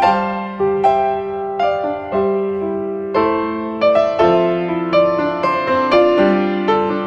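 Background music: a slow, gentle piano melody, with notes struck about every half second and left to ring.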